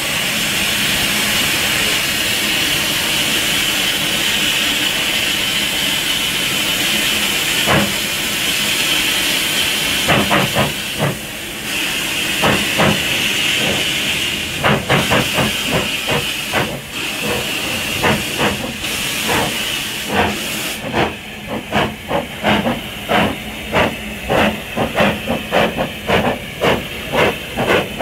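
Two 2-6-2T narrow-gauge steam locomotives starting a heavy train up a steep gradient. A steady hiss of steam comes first. From about ten seconds in, exhaust chuffs begin, growing more regular and quickening to about two a second, while the hiss dies away after about twenty seconds.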